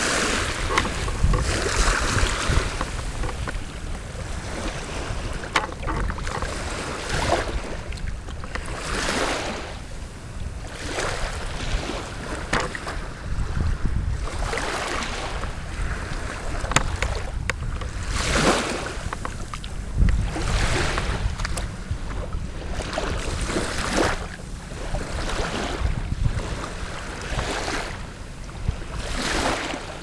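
Small waves washing ashore in irregular surges every couple of seconds, with wind rumbling on the microphone.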